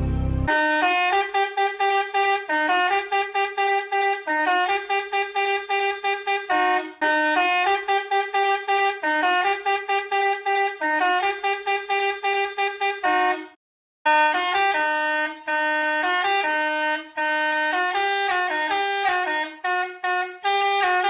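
Hi-do Melody air horn playing a tune in blasts of short and held notes, cutting off briefly about two-thirds of the way through and then starting on another melody.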